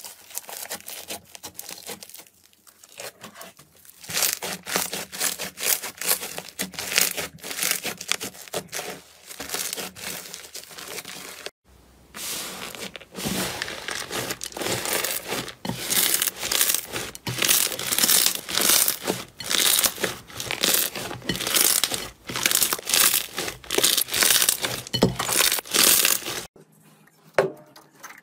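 Slime being stretched, squeezed and kneaded by hand, giving dense crackling and popping: first a grainy slime with puffed-rice-like bits, then, after a sudden cut about a dozen seconds in, a louder run of crackles from a purple slime packed with foam beads. A quieter stretch near the end comes from a clear jelly slime pressed in a plastic tub.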